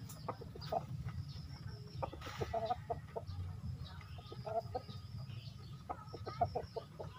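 Chicken clucking: short runs of a few clipped notes, repeated several times, over a steady low rumble.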